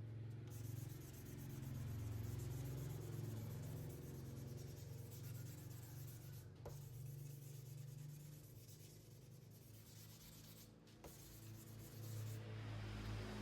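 Sandpaper rubbing on a motorcycle body panel, a soft continuous scratching as the scuffed paint is sanded down.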